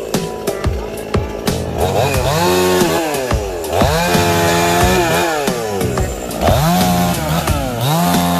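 Two-stroke chainsaw revving up and dropping back again and again, its engine pitch rising, holding briefly and falling about every two seconds as it cuts.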